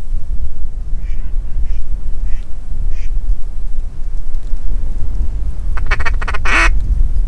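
Strong wind rumbling on the microphone throughout, with a few faint duck quacks between about one and three seconds in, then a short, loud run of quick quacks near the end.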